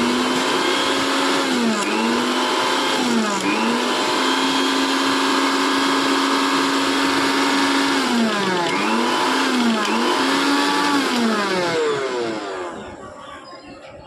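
Mixer grinder's electric motor, its field coil rewound, running on test. The pitch dips and recovers several times, then the motor winds down near the end.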